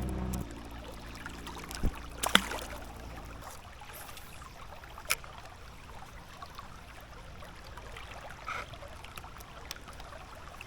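River water running steadily, with a few sharp clicks or knocks about two and five seconds in.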